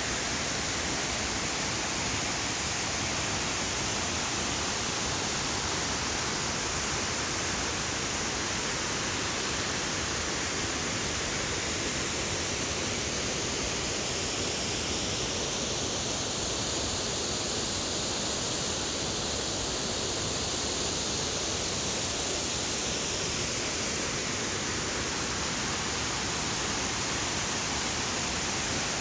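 Waterfall pouring, heard close up from the base of the falls: a steady, dense rush of falling water whose tone shifts slightly midway.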